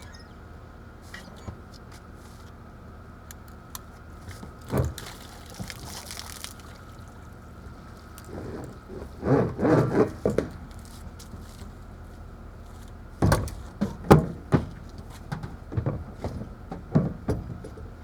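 Water splashing and dripping around a truck-bed water tank being filled, with scattered knocks and clunks now and then, the loudest clusters about nine and thirteen seconds in.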